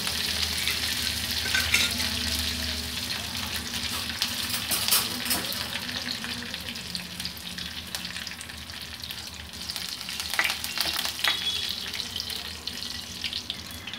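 Tempering of dried red chillies, cumin, mustard seeds and curry leaves sizzling and crackling in hot oil in a kadai. A spatula stirs and scrapes through it near the end.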